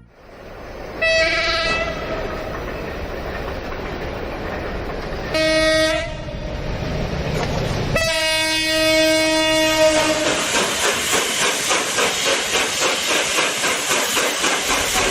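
Train running on the rails and sounding its horn three times, the last blast the longest, over a steady rumble. After that its wheels clatter over the rail joints in an even rhythm.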